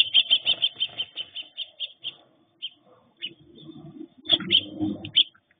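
Sparrows chirping, heard through a security camera's microphone: a fast run of short high chirps, about six a second, slowing and thinning out over the first two seconds, then scattered chirps and a louder flurry of chirps about four seconds in.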